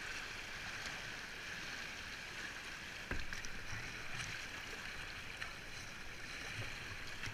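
Fast river water rushing and splashing around a kayak running a shallow riffle, a steady hiss. There is a single knock about three seconds in.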